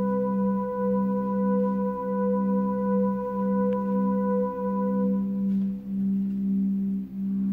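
Chamber ensemble playing a soft, sustained passage: a low note repeated in a slow, even pulse beneath a held higher note that fades out about five seconds in.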